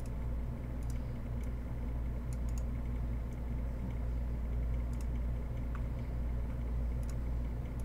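Steady low background hum, with a few faint clicks scattered through it.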